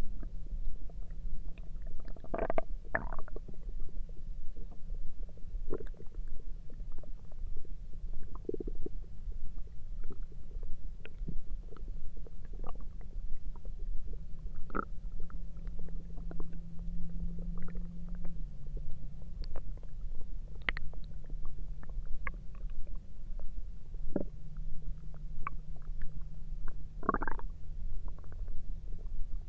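Human stomach and bowel noises: scattered short gurgles and squeaks, with a long low growl from about halfway through that drops slightly in pitch partway along, over a steady low rumble.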